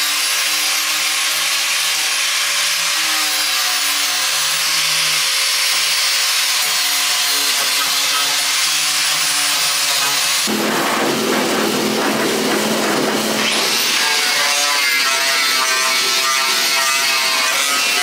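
Handheld DeWalt angle grinder with an abrasive disc running steadily against a steel tube frame, grinding off surface rust with a loud, high grinding hiss. The sound changes abruptly about ten seconds in and again near fourteen seconds as the grinding shifts to another spot.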